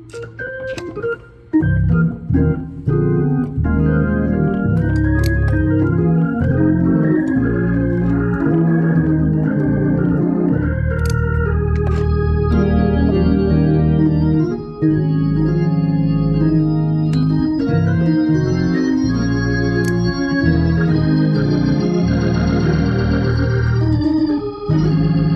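Hammond C3 tonewheel organ being played: a few short, choppy notes at first, then full sustained chords. It has a new 12AX7 tube fitted, and with that the loud ticking noise it had been making is gone.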